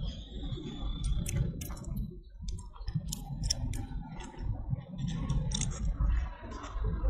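A baby macaque chewing and biting into a small fruit: irregular crisp clicks and crunches, most of them between about one and six seconds in, over a steady low rumble.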